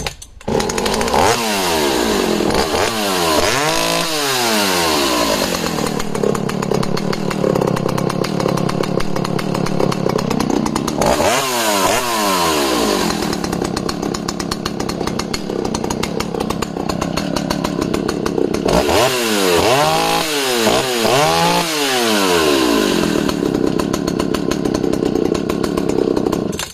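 Vintage Al-Ko 5500S chainsaw's two-stroke engine running, having started at the first pull after several weeks unused. The throttle is blipped up and down several times near the start, again about 11 seconds in and about 20 seconds in, with steadier running between, and the engine cuts off at the end.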